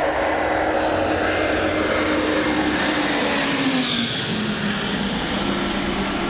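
Antonov An-124 Ruslan's four turbofan engines at takeoff thrust, a loud, steady jet roar as the freighter climbs past. A tone in the engine noise falls in pitch about four seconds in as it goes by.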